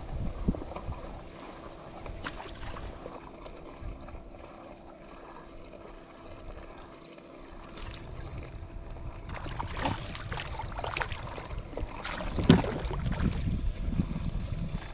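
Water sloshing and trickling close to the microphone, with low wind rumble. It is quieter through the middle, then picks up with sharper splashing from about ten seconds in, loudest near the end.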